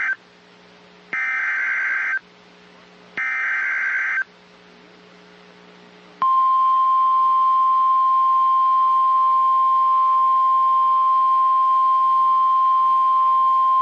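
NOAA Weather Radio alert signal: two one-second bursts of SAME header data, about a second apart, follow the tail of a first burst. Then, about six seconds in, the steady 1050 Hz warning alarm tone starts and holds. Together they mark the start of a severe thunderstorm warning broadcast.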